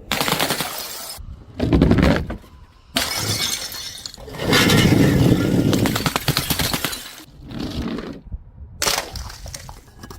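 Glass being smashed: about six sudden shattering crashes, each trailing off, the longest one about halfway through lasting a couple of seconds.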